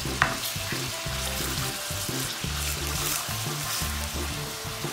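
Pork pieces sizzling in hot oil in a stainless steel pan while they brown, stirred with a spatula, with one sharp knock just after the start.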